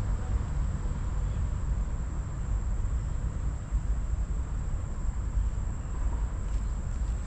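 Outdoor ambient noise: a steady low rumble with a faint, thin high tone held throughout.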